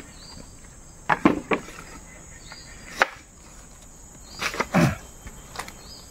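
A parang blade striking thick, old bamboo: several sharp woody knocks, a quick cluster about a second in, one at three seconds and another cluster around four and a half seconds. A steady high insect drone runs beneath.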